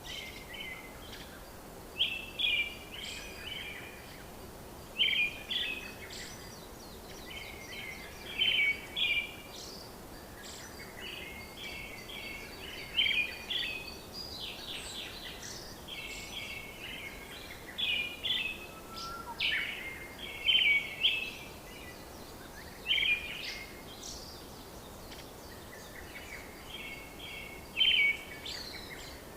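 Songbirds singing: short chirping phrases repeated every two to three seconds over a steady background hiss.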